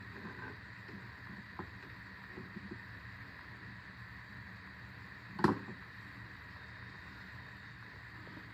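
Steady low background hum with a few faint clicks, and one sharp knock about five and a half seconds in.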